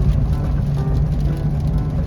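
Background music of short melodic notes over a steady low rumble.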